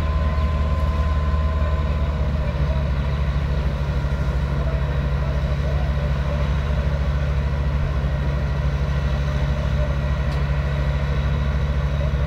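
Airport fire trucks' diesel engines running steadily while their turrets spray water, a constant low drone.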